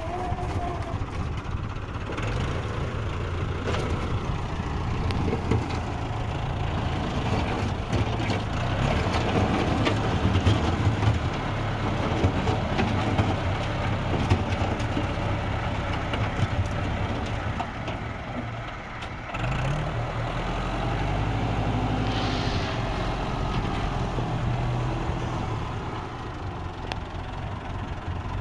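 An engine running steadily with a low hum, scattered clicks and knocks over it; the hum dips briefly about two-thirds of the way through, then carries on.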